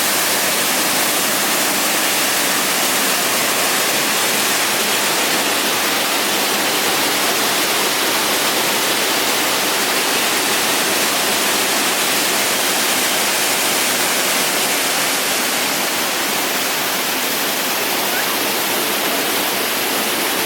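Waterfall pouring, a steady, loud rush of falling water.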